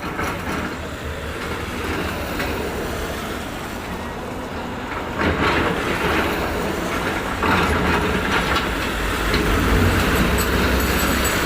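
Heavy construction machinery running, a steady low engine rumble under a rough mechanical noise that grows louder about five seconds in and again near eight seconds.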